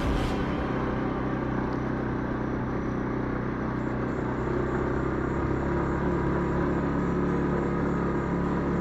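Moped engine running at a steady, even speed while riding.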